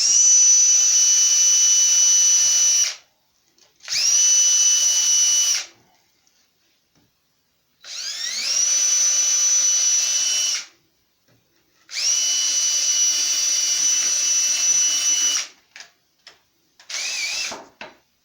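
Electric drill with a small pilot bit boring bolt holes through a plaster-gauze mold backing: four runs of a few seconds each, the motor whining up to speed and then holding a steady high whine before stopping sharply, then a short blip near the end.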